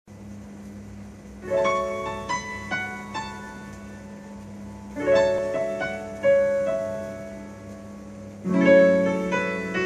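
Keyboard intro of a Cantopop song played from a vinyl record on a turntable. Three chords are struck a few seconds apart, each ringing out and fading, over a steady low held note.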